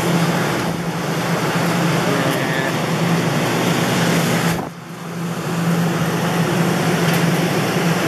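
Steady, loud mechanical hum with a hiss over it, dropping away briefly about four and a half seconds in.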